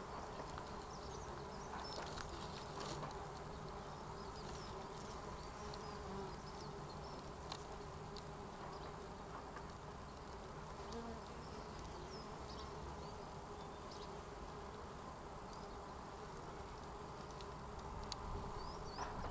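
Red mason bees (Osmia rufa) buzzing in a steady hum.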